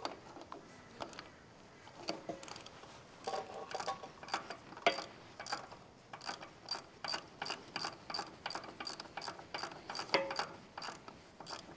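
A 9/16-inch socket ratchet clicking in quick runs, about three or four clicks a second, as the mounting bolts of a tractor power steering pump are tightened. The clicks are sparse at first and come steadily from about two seconds in.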